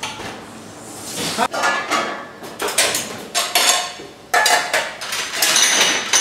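Metal pans, trays and utensils clattering and clinking on stainless-steel counters and a gas stovetop: a string of sharp knocks, several of them ringing briefly.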